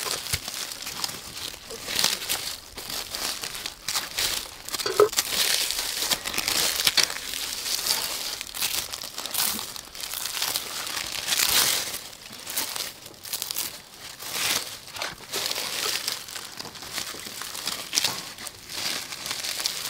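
Dry, charred corn husks being stripped and pulled off roasted ears of corn, crackling and rustling in irregular bursts.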